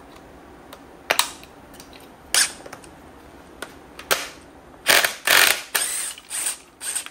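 A few sharp metal clicks, then short trigger bursts from a cordless DeWalt 20V impact driver on a belt-drive pulley bolt, loudest about five seconds in, with more short bursts near the end.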